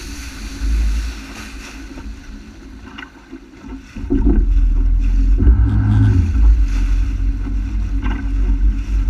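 Engine of a Honda F-12X AquaTrax turbocharged personal watercraft running on the water, with wind buffeting the microphone. The sound dips for a couple of seconds, then gets clearly louder about four seconds in.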